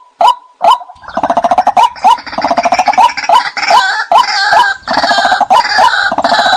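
White-breasted waterhens calling: sharp repeated 'kwak' notes, joined from about a second in by a dense, fast gurgling chatter.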